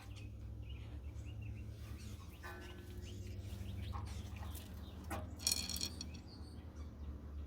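Birds chirping at intervals over a steady low hum, with a short sharp call about two-thirds of the way through.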